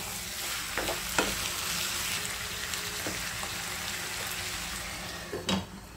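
Chicken pieces in masala sizzling in a nonstick pan, with a wooden spatula stirring and knocking against the pan a few times. The sizzle fades near the end, just after the loudest knock.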